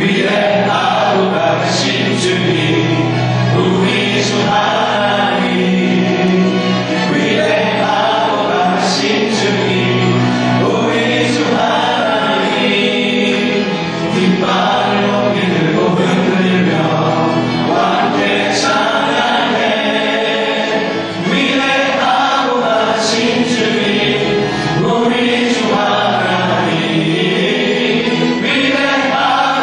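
Church praise team of mixed men's and women's voices singing a worship song in Korean with musical accompaniment, continuously.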